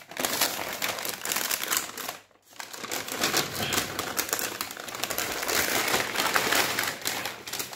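Plastic carry bag around a takeaway food box crinkling and rustling as hands handle and unwrap it: a dense crackle of fine clicks, broken by a brief pause about two seconds in.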